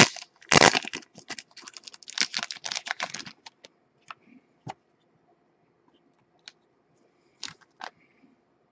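A card case being handled and opened to take out a booklet card: a quick run of clicks and rustling for about three seconds, then a few scattered clicks.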